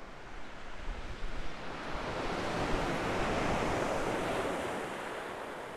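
Surf breaking and washing up a shingle beach, one wave swelling to a peak about three seconds in and then fading, with wind buffeting the microphone in the first part.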